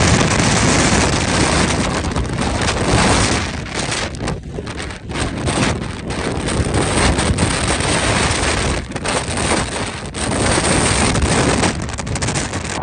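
Strong wind buffeting the microphone: a loud, rough rush of noise in gusts, easing off briefly a few times.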